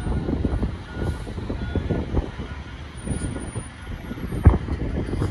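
Rear-loading garbage truck's engine running as the truck pulls slowly forward, an uneven low rumble, with one sharp thump about four and a half seconds in.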